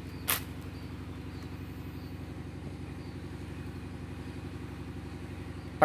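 An engine idling steadily with an even, rapid pulse, and a single sharp click about a third of a second in.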